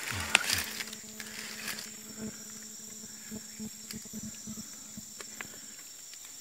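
Tropical forest ambience: a steady high insect drone with a faint low hum beneath it. Footsteps crunch on dry leaf litter in the first half-second, followed by a few faint scattered ticks.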